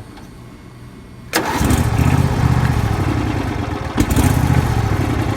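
Riding lawn mower's newly fitted engine starting on the first crank: it catches abruptly a little over a second in and keeps running steadily. A sharp click sounds about four seconds in.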